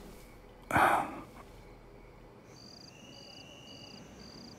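A short, loud breathy burst about a second in. After it, crickets chirp at about two chirps a second over a steady high trill.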